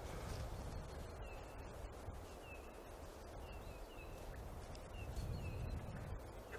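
A small bird gives a string of short, high, falling chirps, about two a second, over a faint low rumble of wind.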